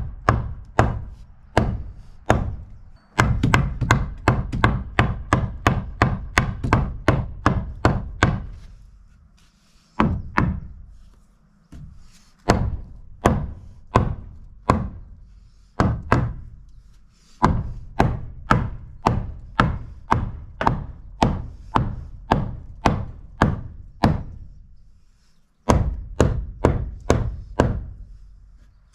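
A hammer pounding on wood in long runs of about three to four blows a second, with short pauses between the runs, working a cut framing piece into place in a floor repair.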